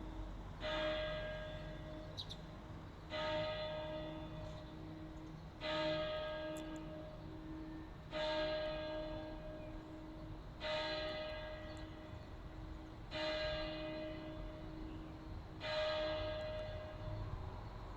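A single church bell struck at a slow, even pace, about once every two and a half seconds. There are seven strokes, each ringing on and fading under a lingering low hum until the next.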